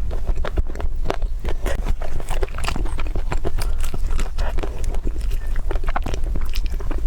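Close-up eating sounds: a person biting and chewing food, with many short, irregular clicks and smacks, over a steady low hum.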